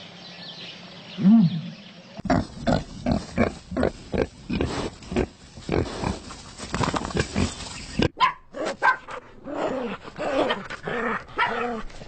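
Animal calls from several spliced clips: a short rising-and-falling call, then from about two seconds in a rapid run of short grunts, and from about eight seconds in higher, wavering whines and yelps.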